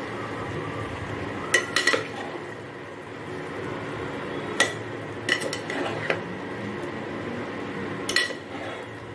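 Wooden spatula stirring a thick chicken and potato curry in a non-stick saucepan, with several sharp knocks and clinks against the pan: a pair about one and a half seconds in, a cluster in the middle, and one more near the end.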